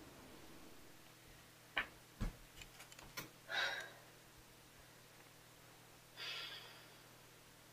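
Quiet room with a few faint clicks and knocks, then two soft exhaled breaths like sighs, the first about three and a half seconds in and the second about six seconds in.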